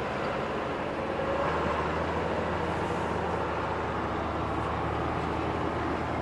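Off-road jeep engine running steadily while driving through soft desert sand, with a low even drone.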